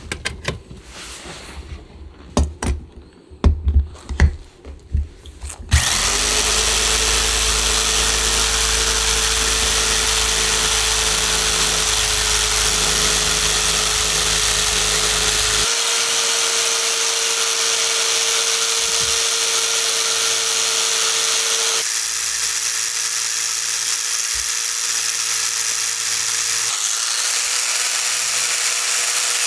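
Scattered knocks and clicks of hand work for about six seconds. Then an electric power tool starts suddenly and runs steadily with a constant hum, its sound shifting abruptly twice.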